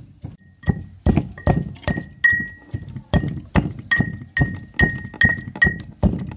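Brass mortar and pestle pounding ingredients: regular metal-on-metal strikes, about two and a half a second, each leaving a short ring. A few lighter taps come first, then the strikes grow heavier about a second in.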